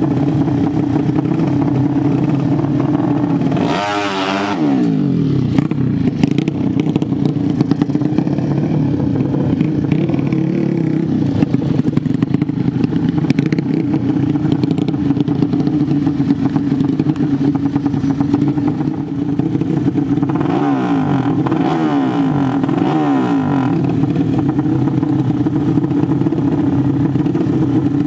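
Two 150 cc sleep-engine (horizontal-cylinder) drag-bike engines idling at the start line, blipped up and down in pitch about four seconds in and again in a run of revs near twenty seconds in.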